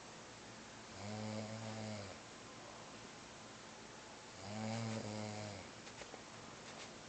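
Snoring by a sleeper: two long, low snores, each about a second long, about three and a half seconds apart.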